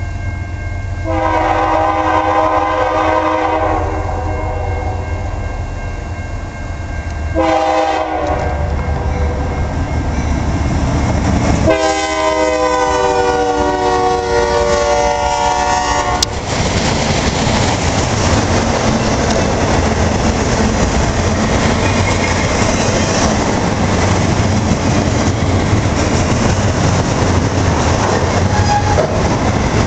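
Diesel freight locomotive horn sounding three blasts, a long, a short and a long, as the train approaches. Then the locomotives and autorack cars pass close by with a steady loud noise of wheels on rail.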